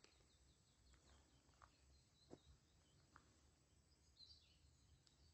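Near silence: faint outdoor ambience with a few faint, high bird chirps and several soft clicks.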